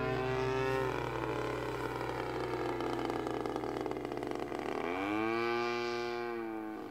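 Gas engine of a Great Planes U-Can-Do radio-controlled airplane in flight, running steadily; its pitch falls about a second in, then swings up again about five seconds in and holds.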